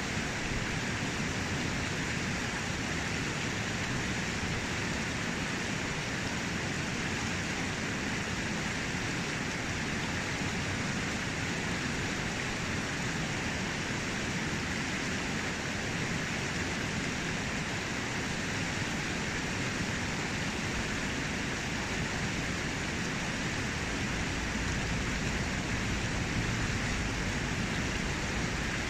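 Fast, shallow river running over a rocky bed: a steady, unbroken rush of water.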